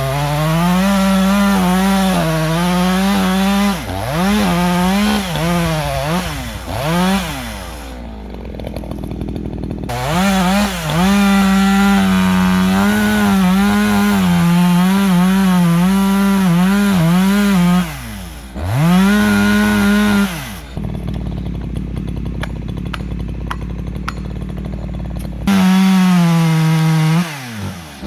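Echo CS-620P chainsaw with a 24-inch bar making felling cuts at full throttle, its engine note wavering as it bogs and recovers in the wood. The saw drops back to idle several times between cuts, the longest pause for about five seconds two-thirds of the way through, before revving back up.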